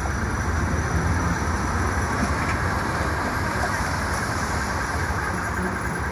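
A recorded city street soundscape playing back: a steady low rumble of street traffic, like passing trams and cars.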